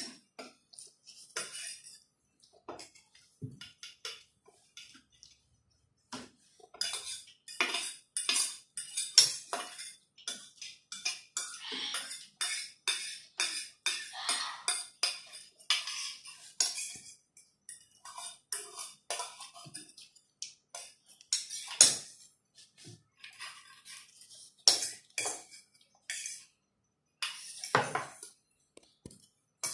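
Metal forks and spoons clinking and scraping against stainless steel bowls as noodles are eaten, in irregular clusters of short clicks. It is sparse a few seconds in, then busy for about ten seconds, then comes in bursts as the bowls are scraped clean.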